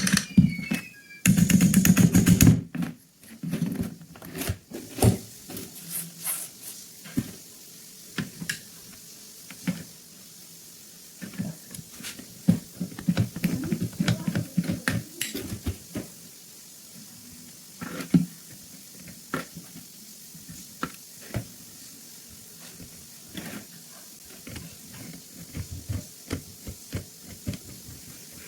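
Hand work on a pistol's metal parts: irregular clicks, knocks and light scrapes, with a dense rattling burst about a second and a half in.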